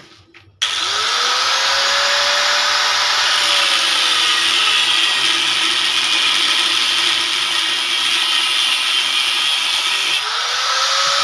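Electric angle grinder with a cutting disc starting up about half a second in and cutting through an iron rod, a loud steady grinding with sparks flying. Near the end the motor speed dips and spins back up.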